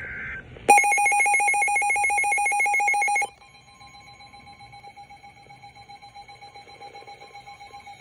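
Emergency Alert System alert tones. A brief data-burst screech at the start is followed, under a second in, by a loud, rapidly pulsing electronic buzz for about two and a half seconds. It then drops to a quieter steady two-note tone.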